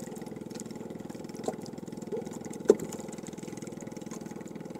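A small engine running steadily at a low idle-like speed, with a few light knocks; the loudest is a sharp knock about two and a half seconds in.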